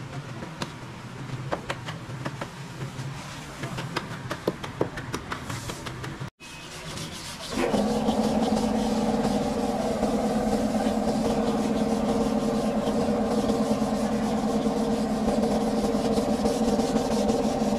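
Light scraping and clicking of a filler spreader working body filler on a car bonnet. After a short break, a louder steady rasping rub of a sanding block being worked over the painted bonnet panel.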